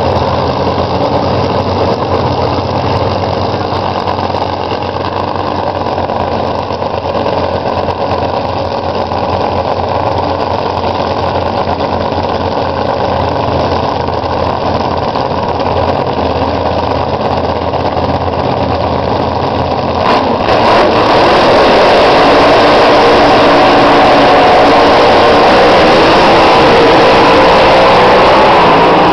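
Two drag-racing funny cars' supercharged engines idling at the starting line. About two-thirds of the way through, the engines go to full throttle as the cars launch down the strip, much louder and overloading the microphone.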